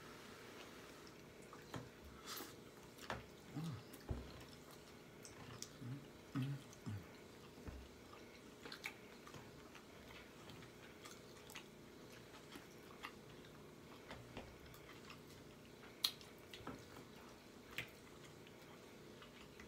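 Faint chewing and mouth smacking from a person eating close to the microphone, with scattered wet clicks, busiest in the first eight seconds and sparser after, and one sharper click about sixteen seconds in.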